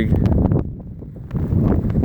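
Wind buffeting the microphone in a low rumble. It eases about half a second in and gusts up again near the end.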